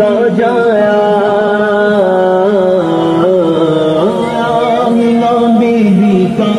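Devotional singing of a naat: one voice chanting long, held notes that bend and glide in pitch.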